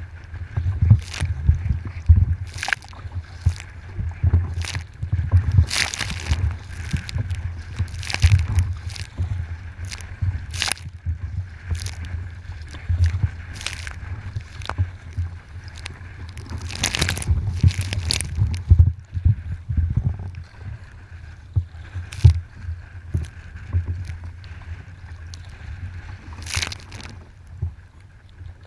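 Water sloshing and splashing around a kayak, with sharp irregular splashes every second or so over a constant low rumble.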